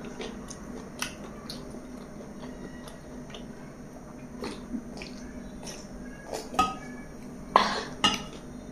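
Close-miked wet mouth sounds of eating and sipping soda from a can: scattered small smacks and clicks, with the loudest pair near the end.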